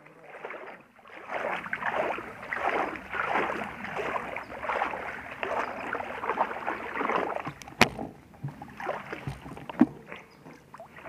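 Creek water splashing and sloshing close by as someone wades through it, in uneven surges. There is one sharp knock nearly eight seconds in.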